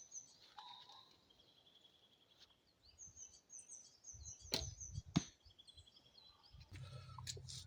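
A bow being shot: two sharp snaps about half a second apart, with birds chirping.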